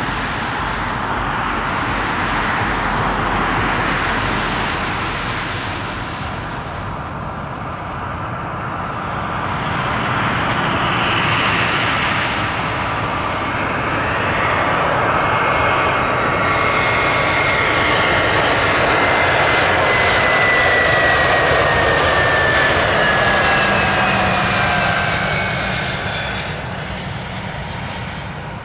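Airbus A320 airliner's twin jet engines on final approach: a steady rushing jet noise that grows louder as the plane nears and passes, with a high whine that falls in pitch as it goes by, then fades near the end.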